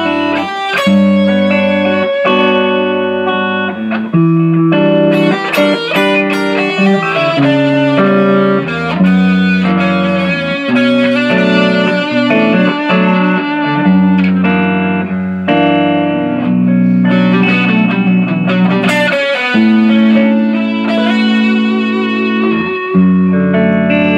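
Single-cutaway electric guitar fitted with a Floyd Rose FRX tremolo, played amplified as a play-test after the install: a melodic passage of ringing, overlapping notes over held low notes.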